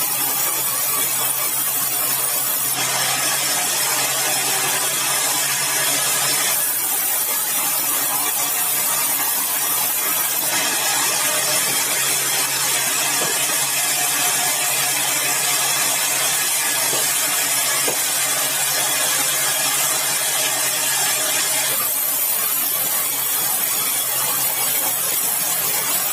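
Sawmill saw cutting through a large log of dry, hard red balau wood: a steady, loud, hissing cutting noise over a low machine hum, its texture shifting a few times as the cut goes on.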